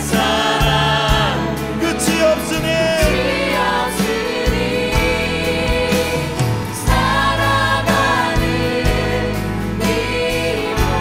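Live contemporary worship band with voices singing, an Alleva Coppolo LG5 five-string electric bass playing held low notes that change every second or two.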